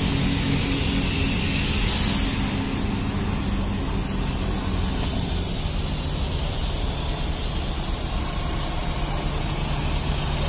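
Coach bus's diesel engine running steadily as the bus manoeuvres slowly past at close range, with the low engine note shifting about six seconds in. A hiss is heard over it in the first few seconds, strongest about two seconds in.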